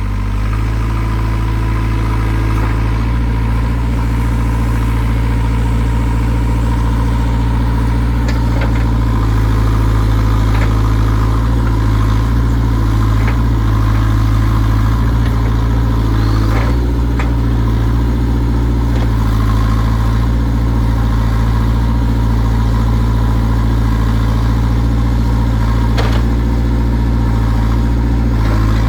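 JCB 3CX backhoe loader's diesel engine running steadily at an even speed, with a few sharp knocks now and then.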